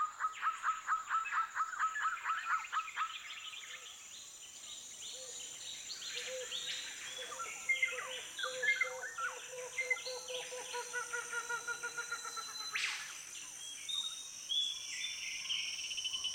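Jungle canopy chorus of many birds and insects calling over one another. A fast run of chirps, about five a second, fills the first few seconds, then overlapping whistles and trills follow, all over a steady high insect drone.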